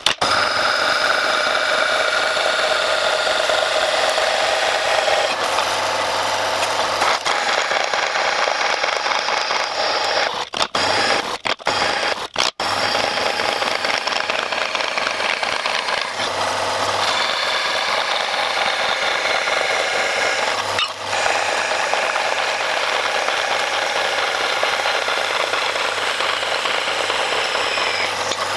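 Vertical bandsaw running and cutting through a metal plate, a steady rasping whine with shifting tones. It cuts out briefly a few times around the middle.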